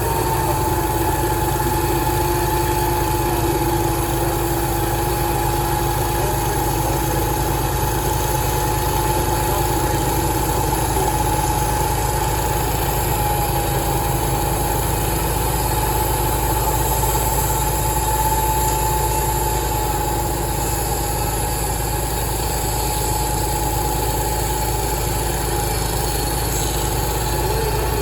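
Sawmill machinery running steadily: a constant engine-like drone with a steady whine over it.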